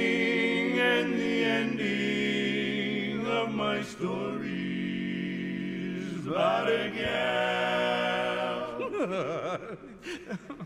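Barbershop quartet singing a cappella in close four-part harmony, holding long sustained chords. There is a short break about four seconds in, and the singing thins into softer phrases near the end.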